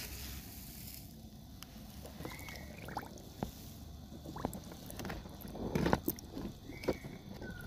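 Light water splashing and sloshing as a toy crocodile moves through a shallow tub of water, with scattered small clicks and the loudest splash about six seconds in. A few short high chirps are heard.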